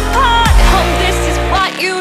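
Electronic dance music: a heavy steady bass under a high melody line that bends in pitch, with the bass dropping out near the end.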